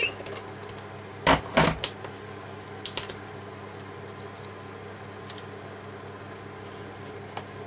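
Handling noise of paper card being worked by hand on a wooden desk: two loud knocks about a second and a half in, then a few light taps and clicks, over a steady low hum.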